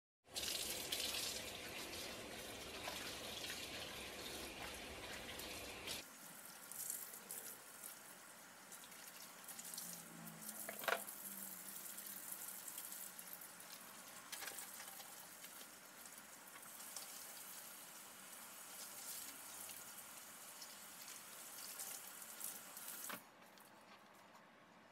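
Kitchen tap running into a stainless steel sink while a cutting board is scrubbed with a brush under the stream. The water is louder for the first six seconds, then drops abruptly. There is one sharp knock about eleven seconds in.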